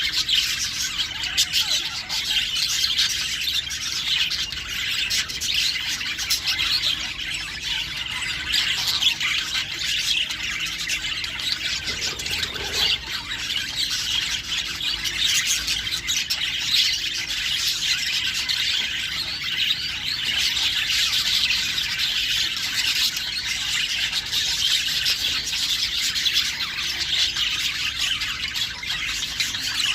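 A group of show budgerigars chattering, warbling and squawking without a break.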